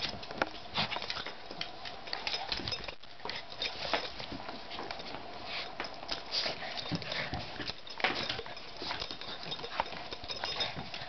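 Two small dogs play-fighting on a hardwood floor: claws clicking and scrabbling on the boards in a quick, irregular patter, with scuffling bodies.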